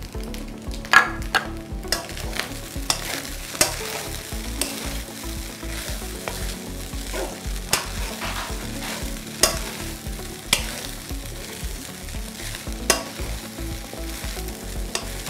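Rice and vegetables sizzling in a frying pan while being stirred with a spatula, which knocks and scrapes against the pan about once a second.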